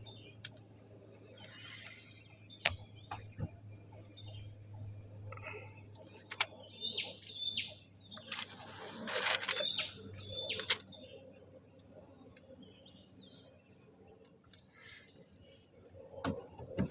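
Outdoor ambience of insects buzzing steadily at a high pitch in a pulsing pattern, with birds chirping several times. Scattered sharp clicks and a louder rustle around the middle.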